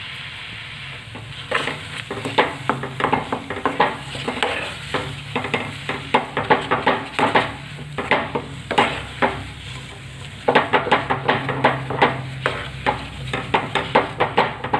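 Steel spoon scraping and knocking against a steel pan as thick besan halwa is stirred, in quick strokes that start about a second and a half in, pause briefly past the middle, then resume. A low sizzle of the halwa cooking runs underneath.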